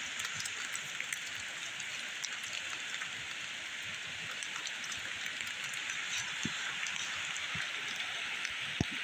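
Steady rain hissing, with scattered single drops ticking close by and a sharper tick near the end.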